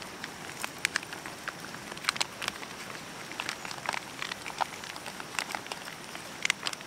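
Spoon stirring chili con carne in an aluminium Trangia pot, making irregular light clicks and scrapes against the pot over a faint steady hiss.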